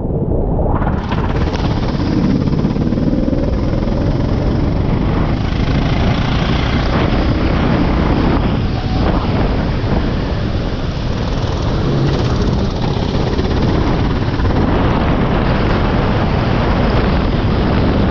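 Go-kart engine running, heard through a loud, steady low rumble and hiss.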